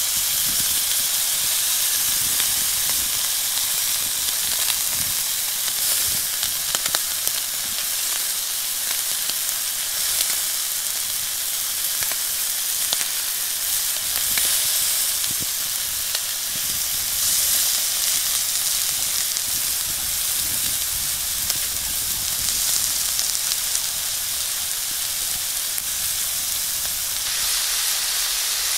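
Beef steaks frying in herb butter in a hot cast-iron pan: a steady sizzle with scattered small crackles and spits.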